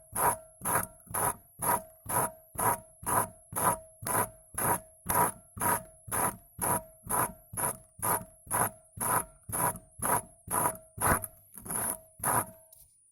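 Hand tool being scraped back and forth across the glass bulb of a filament LED bulb to cut through it. The strokes come in a steady rhythm of about two a second, each with a ringing note, and stop near the end.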